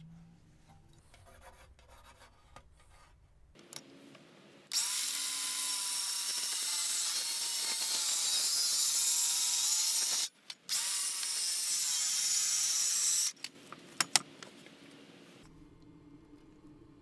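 DeWalt cordless circular saw cutting through a solid-wood board: a loud cutting noise over a motor whine that wavers under load. It starts about five seconds in, breaks off for a moment about halfway, and stops about eight seconds after it started. A few quiet handling clicks and knocks come before and after.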